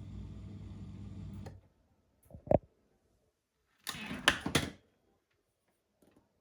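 Dishwasher running with a steady hum that cuts off about a second and a half in; a single knock follows, then a short, loud clatter of several rapid strikes.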